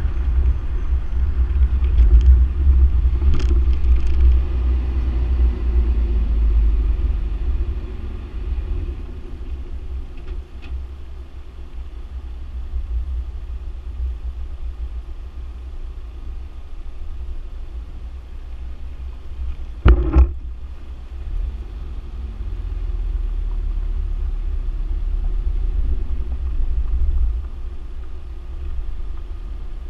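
A car driving, heard as a steady low rumble of engine and road noise, louder at the start and again near the end. There is one sharp knock about two-thirds of the way through, like the car hitting a bump.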